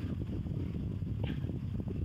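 Wind buffeting a phone microphone as a steady low rumble, with a brief soft hiss about a second in.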